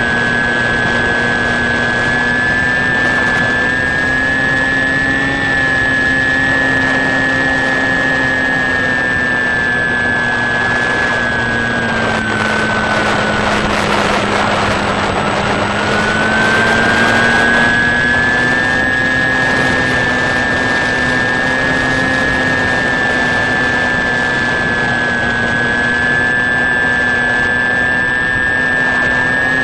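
Electric motor and propeller of a HobbyKing Sky Eye FPV plane whining steadily in cruise flight, heard from the onboard camera with rushing air noise. About twelve seconds in, the whine's pitch sags for a few seconds while the rushing grows louder, then it rises back to its cruising pitch.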